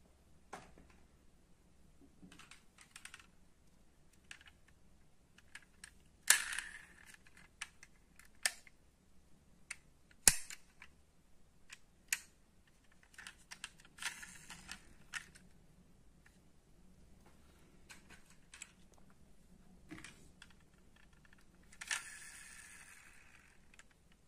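Die-cast metal model cars handled by hand over a wooden tabletop: scattered light clicks and knocks of the metal bodies, parts and wheels, with a few sharper clicks and a short scraping rustle near the end.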